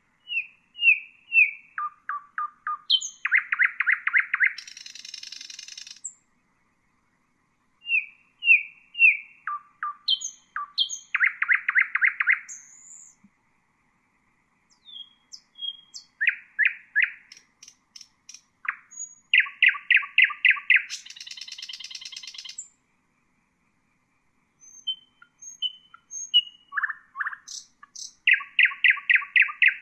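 Common nightingale singing: four phrases with short pauses between, each a few clear whistled notes running into a fast series of repeated notes and a buzzy rattle.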